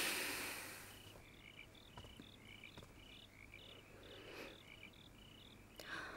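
Crickets chirping faintly in a steady rhythm, a few short chirps a second. A brief rush of noise at the very start is the loudest sound.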